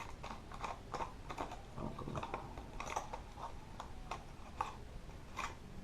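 Plastic packaging of a fishing jig being handled and worked open by hand: irregular small clicks and crackles.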